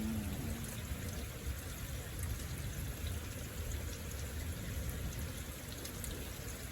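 Heavy rain pouring down steadily in a thunderstorm, with a low rumble underneath.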